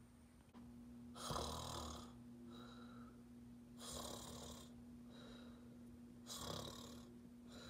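A person making snoring sounds: slow, breathy in-and-out snores about every two and a half seconds, over a faint steady hum.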